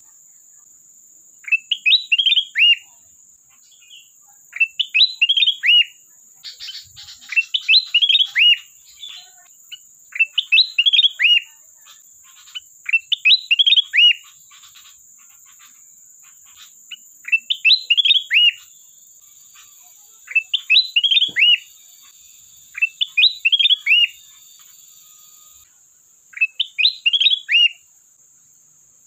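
Kutilang emas bulbul singing: short, bright whistled phrases of quick falling notes, each about a second long, repeated about every three seconds.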